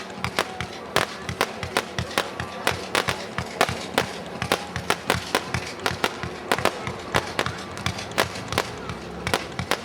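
Winda Amazing Ballet 500-gram multi-shot aerial cake firing: a rapid, irregular string of sharp pops and bangs, about two to three a second.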